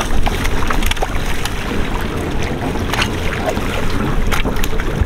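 Wind buffeting the microphone over water washing against a sailboat's hull, with scattered short sharp splashes and knocks from a hooked fish thrashing at the surface beside the boat.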